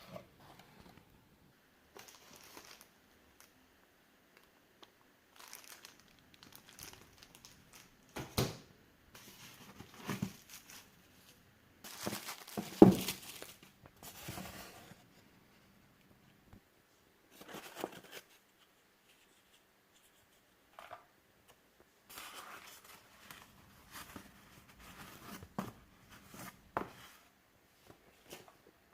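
Packaging being handled during unboxing: intermittent crinkling and rustling of wrapping, in short bursts with quiet gaps between. There are a few knocks, the loudest about 13 seconds in.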